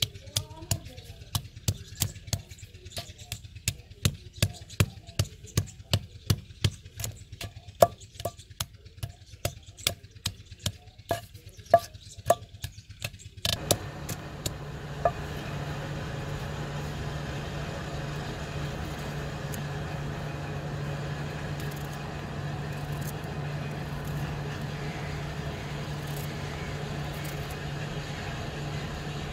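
Wooden pestle pounding radish pieces in a stone mortar: sharp regular knocks, about two to three a second, that stop about halfway through. After that a steady low engine hum, like a motor vehicle running nearby, carries on.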